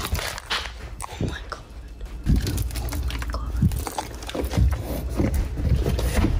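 Rustling and irregular low thumps of a phone being carried by someone walking in socks on a concrete floor, with muffled footsteps.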